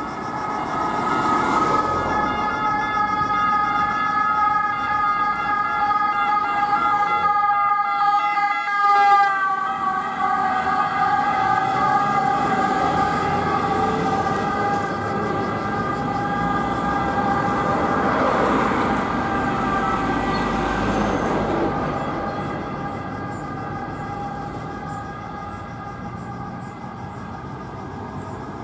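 Fiat Ducato X290 ambulance's double siren sounding steadily as the ambulance drives past. Its pitch drops slightly about nine seconds in as it goes by, and it grows fainter near the end as the ambulance moves away. Engine and road noise sit underneath.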